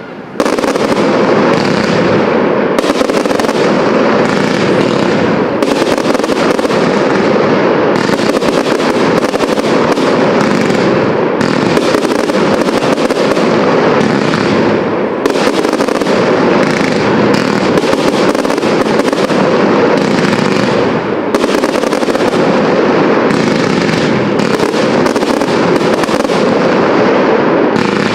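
Professional fireworks display: many shells and effects bursting in rapid, overlapping succession, forming a loud, continuous barrage.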